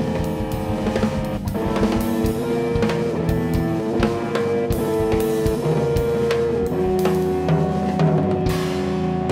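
Hollow-body electric guitar playing held chords that change every second or two, over a drum kit with busy cymbal and snare strikes: a live guitar-and-drums duo.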